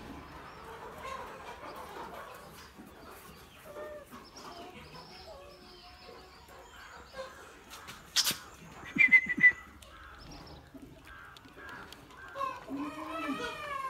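Chickens clucking and small birds chirping, with a couple of loud sharp sounds about eight and nine seconds in.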